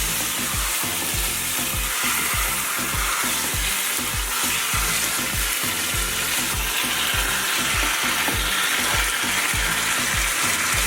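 Chicken pieces frying in hot oil with curry seasoning, a steady sizzle, over a regular low thumping about twice a second.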